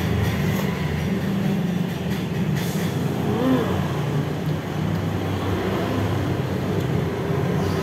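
A steady low mechanical rumble runs throughout.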